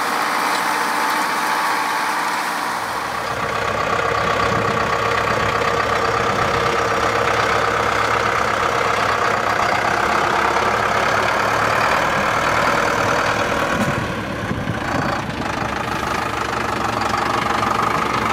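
Zetor Proxima tractor's diesel engine running steadily. About three seconds in, a deeper low rumble joins the sound.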